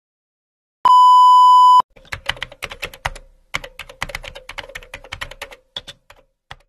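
A loud, steady electronic beep lasting about a second, then rapid, uneven key clicks of computer-keyboard typing for about four seconds: a typing sound effect for on-screen text being typed out and erased.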